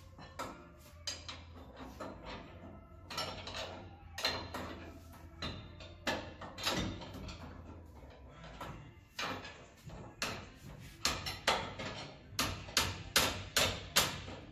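Hand tools clanking and tapping on metal suspension hardware while U-bolts are fitted in a race car's wheel well: irregular sharp knocks, quickening near the end to a run of clinks about two or three a second.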